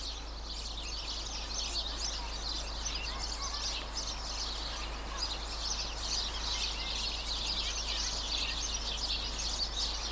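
Small birds chirping and twittering, many short overlapping calls in a continuous chorus, over a steady low background rumble.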